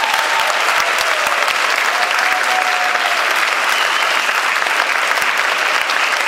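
Audience applauding: dense, steady clapping, with a few voices calling out over it in the first half.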